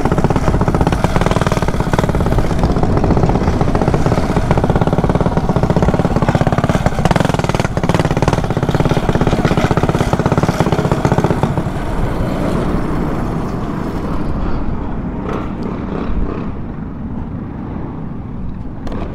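Mini bike's small single-cylinder engine running under way, its pitch gliding briefly about seven seconds in. After about twelve seconds it drops to a quieter, steadier running as the bike slows and stops.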